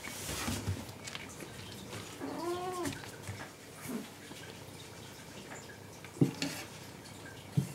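A long-haired cat gives one short meow that rises then falls in pitch, about two seconds in. Two brief, louder sounds come near the end.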